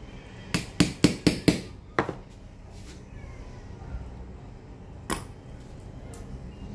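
Small hammer tapping metal on a pair of cuticle nippers held on a small metal block: five quick, sharp taps about a second in, another a moment later, and a single tap near the end.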